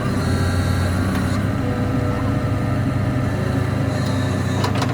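Heavy engine running steadily at a constant speed, with a few sharp clicks about four and a half seconds in.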